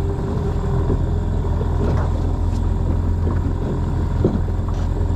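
Mariner 10 hp outboard motor idling with a steady low rumble, with a few light knocks on the boat's hull or gear.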